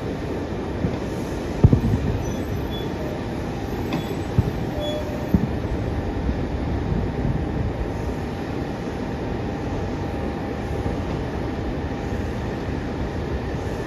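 Distant fireworks going off as a handful of dull booms in the first half, the loudest about two seconds in. Under them runs a steady low rumble of airport background noise.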